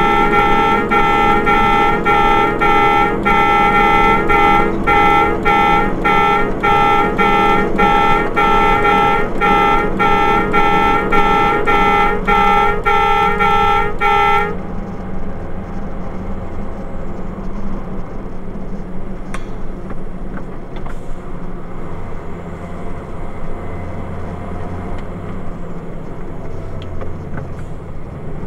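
A loud horn-like tone beeping evenly, a couple of times a second, that cuts off suddenly about halfway through. After that, the steady drone of a truck's engine and road noise as heard inside the cab.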